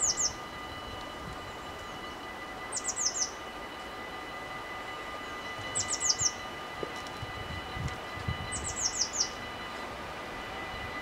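A small songbird repeating a short phrase of three or four quick falling chirps about every three seconds, over a steady high ringing from the level crossing's warning bells as a train approaches.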